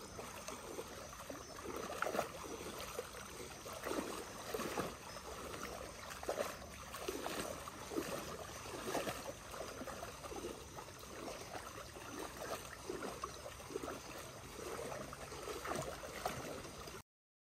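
Water sloshing and splashing in uneven strokes about once a second as a deer carcass is dragged through shallow swamp water by a wading person.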